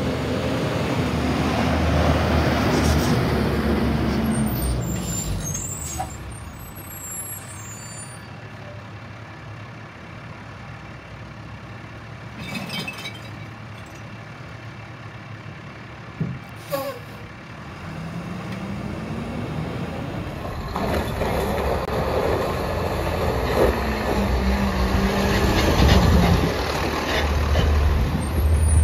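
Rear-loader garbage trucks' diesel engines: one truck's engine running loud as it drives up, then a quieter stretch broken by a few sharp knocks, then an engine speeding up to a higher, steady pitch and holding there.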